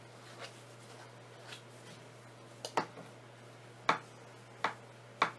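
A handful of short, sharp clicks and taps, about five of them spread over the last three seconds, the loudest near the end, over a steady low hum.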